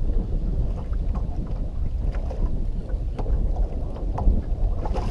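Wind buffeting the boat-mounted microphone in a steady low rumble. Water laps against the boat's hull, with scattered light knocks and splashes.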